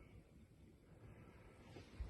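Near silence: faint room tone inside a boat's cabin.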